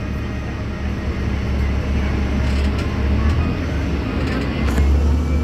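Transit bus running, heard from inside the cabin: a steady low engine and road rumble, with a few light rattles about halfway through.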